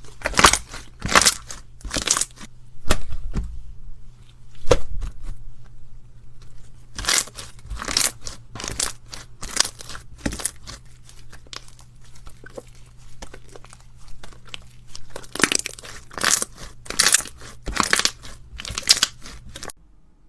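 Crunchy slime being squeezed and pressed by hand, crackling in clusters of sharp snaps with quieter pauses between, over a faint steady low hum.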